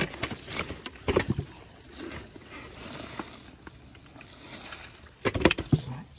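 Scattered knocks, scraping and rattling from a red metal catch box with a wire-hinged lid being handled, with caught rice-field eels inside. The loudest clatter comes about five seconds in.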